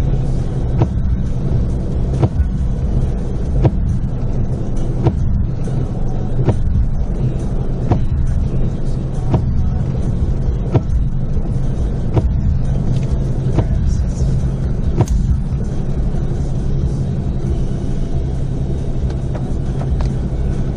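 Steady low vehicle rumble, with a sharp click repeating about every one and a half seconds.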